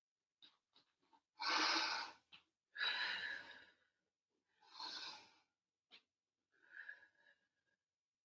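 A woman breathing audibly in and out through a plank exercise: four long, breathy rushes of air, the first two louder than the last two, with a few faint ticks between them.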